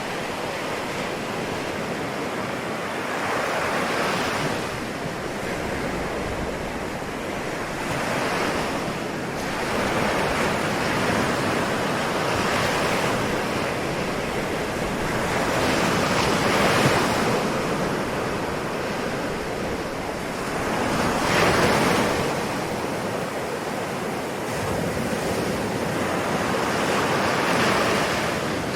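Ocean waves breaking and washing in, a continuous rush of surf that swells every four to five seconds, loudest about 17 and 22 seconds in.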